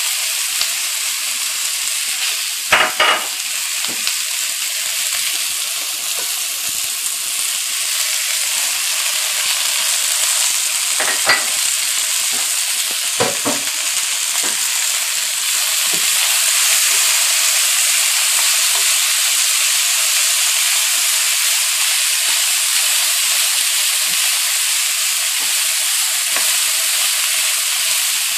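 Onions, carrots and green beans sizzling steadily in hot canola oil in a frying pan while being stirred, the sizzle growing a little louder about halfway through. A few short, sharp knocks come through, the loudest about three seconds in.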